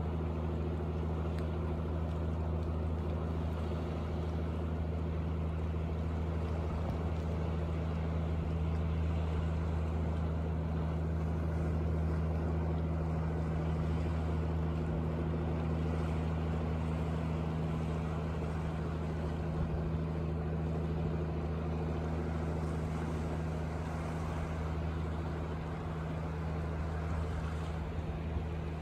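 Fishing boat's inboard engine running steadily at cruising speed, a low even drone.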